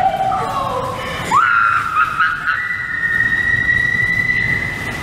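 A girl riding in a shopping cart lets out a long, steady, high-pitched scream that slides up at its start and steps higher midway, over the rumble of the cart's wheels rolling on concrete.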